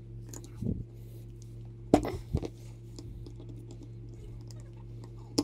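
Small parts of a model train locomotive handled and fitted together on a workbench: a few light clicks and knocks, the sharpest about two seconds in, over a steady low hum.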